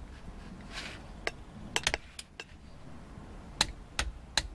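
Ratchet head of a click-type torque wrench clicking in about ten sharp, irregularly spaced clicks as the rear differential drain plug of a BMW X3 E83 is tightened to 35 Nm.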